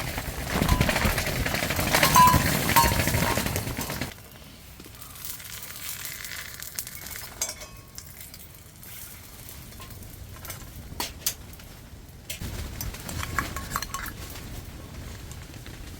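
Food sizzling in a pan for about the first four seconds, stopping abruptly, then scattered clinks of utensils against dishes and pans.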